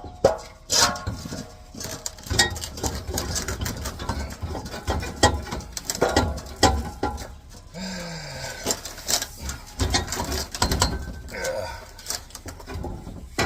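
Steel muffler and tailpipe being wrestled into place under a pickup, clanking and scraping against the leaf spring and frame in irregular knocks, with a few strained grunts of effort.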